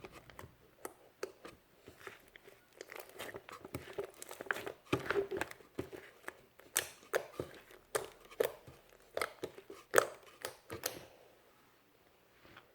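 Slime being squeezed and stretched by hand, giving a run of irregular sticky clicks, pops and crackles that grows busier after a few seconds and dies away in the last second or so.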